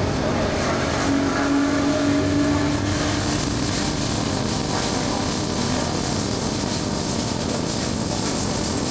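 Royal Enfield Guerrilla 450's single-cylinder engine running steadily at highway speed, under a steady rush of wind noise.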